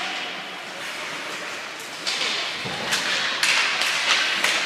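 Ice hockey play echoing in an indoor rink: a steady hiss of skate blades on the ice, then from about two seconds in a run of sharp knocks and clacks of sticks, puck and boards.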